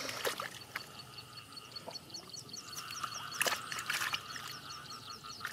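Hands sloshing and scrabbling in shallow muddy water, with scattered small splashes and clicks. From about two seconds in, an animal calls in a rapid run of short high chirps, about eight a second.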